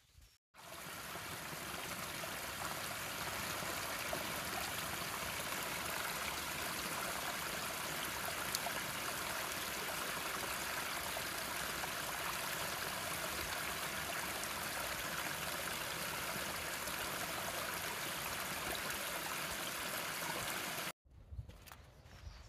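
Small woodland stream trickling and splashing down a rocky, stepped channel: a steady rush of running water that cuts in just after the start and cuts off abruptly near the end.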